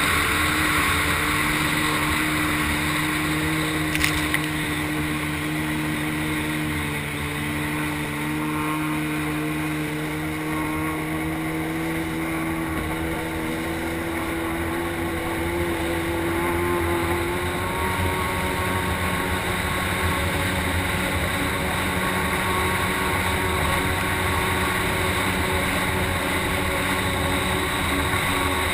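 Stand-up jet ski engine running hard on a speed run, a steady drone that slowly creeps up in pitch over the first fifteen seconds or so, over a constant rush of water spray and wind. A single sharp click about four seconds in.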